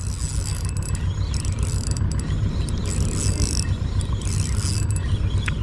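Spinning reel being cranked to bring in a hooked fish on a bent rod, a mechanical whirring in repeated spells about half a second long, over a steady low rumble.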